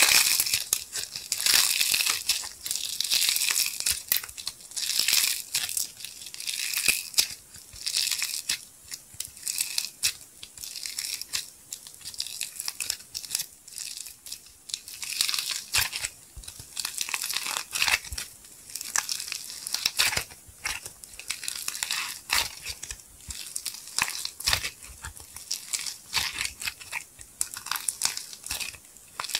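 Hands crushing a brittle blue clay crust coated with gold glitter and sequins, then squeezing and pulling apart the softer clay beneath: dense, irregular crackling and crunching with tearing sounds.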